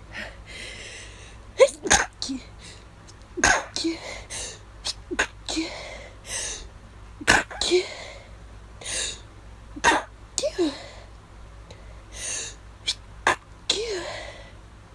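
A person's stifled allergy sneezes in a long run: about a dozen short, sharp, held-in bursts, several coming in quick pairs, with sharp breathy intakes between them.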